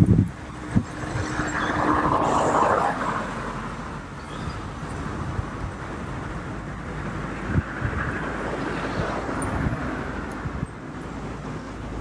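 Road traffic: a steady low rumble of cars, with vehicles swelling past about two seconds in and again around eight seconds.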